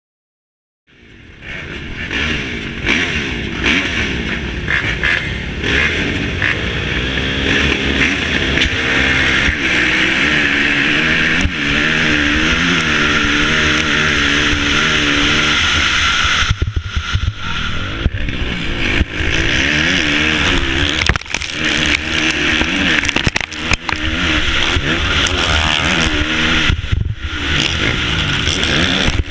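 Dirt bike engine at full throttle, heard from a helmet-mounted camera, cutting in about a second in and rising and falling in pitch again and again as it is run up through the gears and shifted, accelerating hard off the race start. A loud rushing hiss of wind on the microphone runs under it.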